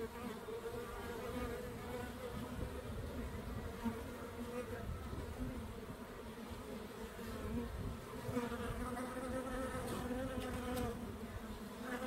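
Honeybees humming at a hive entrance as the colony's foragers fly in and out: a steady, even hum.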